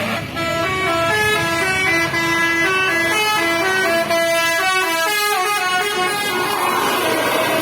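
Tour bus 'telolet' multi-trumpet air horn playing a quick melody of short stepped notes for several seconds, giving way near the end to a rushing noise.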